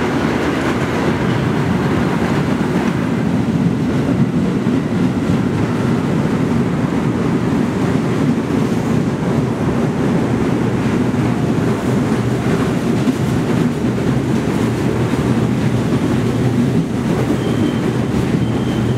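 New York City subway train pulling into a station along the platform: steady rumble of wheels and running gear on the rails. A few short high squeals come in near the end as it slows to a stop.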